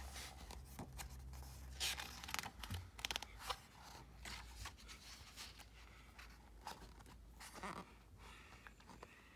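Pages of a hardcover picture book being turned and handled: scattered paper rustles and soft scrapes, with a few sharper crinkles about two to three and a half seconds in.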